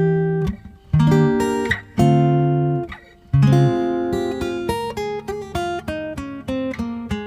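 Background music: acoustic guitar strumming chords, each struck sharply and left to ring out.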